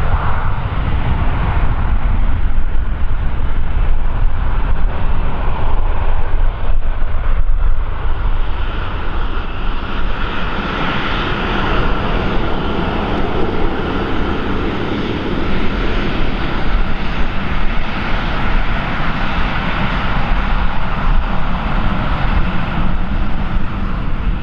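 An airliner's engines running loud and steady as the aircraft passes during takeoff or landing, a continuous rushing noise that grows fuller about ten seconds in, over a heavy low rumble from wind on the microphone.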